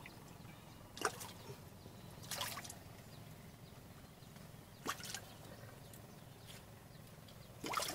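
Water splashing and sloshing in four short bursts a second or two apart, two sharp and two longer swishing ones, over a low steady background.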